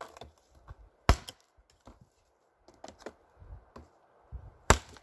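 Becker BK9 big knife chopping a dry dead limb laid across a wooden stump: two sharp chops, about a second in and near the end, with lighter knocks between.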